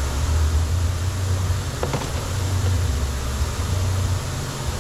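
Steady low drone in the background, with one faint click about two seconds in.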